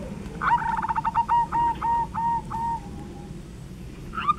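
A bird calling: a run of clear, repeated notes that starts fast and slows down, beginning about half a second in. A second run starts near the end.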